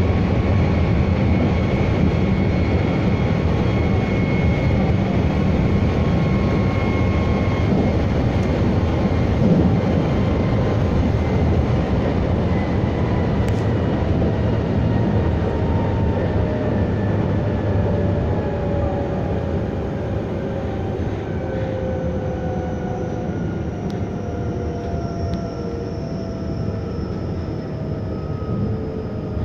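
Running sound from inside a Meitetsu 3150 series electric train: a steady rumble of wheels on rail, with several motor whines falling slowly in pitch as the train slows. A single click about ten seconds in.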